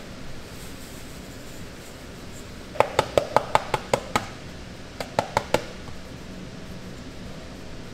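Sharp knocks on a hard surface: a quick run of about eight, a short pause, then four more, over a steady background hiss.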